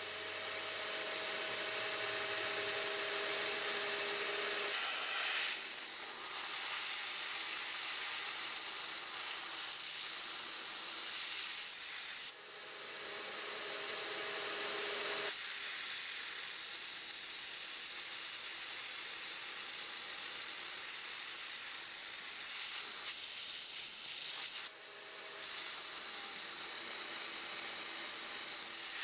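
A nozzle on a 9x20 benchtop CNC lathe blows a steady hiss at the cut as the tool turns the part. The hiss breaks off briefly about 12 seconds in and again near 25 seconds. A faint whine from the machine sits under it for the first few seconds and for a few seconds after the first break.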